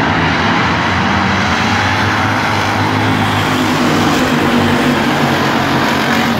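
A pack of hobby stock race cars passing close by at racing speed, their engines running hard together in a dense, steady drone.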